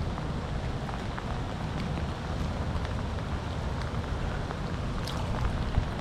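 Steady rain falling on the river and the kayak, an even hiss with a low rumble underneath.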